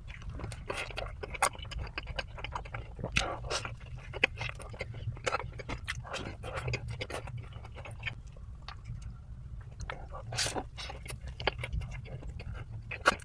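Close-miked chewing of KFC fried chicken: irregular crunches and wet mouth clicks, over a steady low hum.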